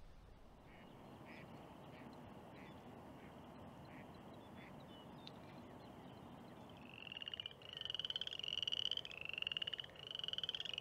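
Frogs calling: faint at first, then from about seven seconds in a loud run of short trilled calls, one after another, each under a second long.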